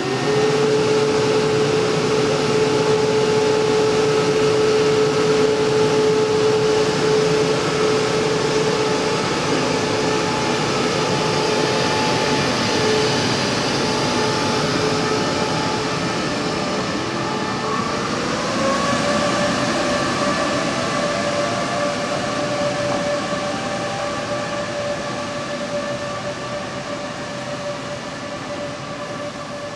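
Taiwan Railways E1000 electric push-pull express accelerating away: a steady electric traction whine over the rumble of wheels on rail. The whine glides up in pitch just past halfway, then holds, and the whole sound fades near the end as the train draws off.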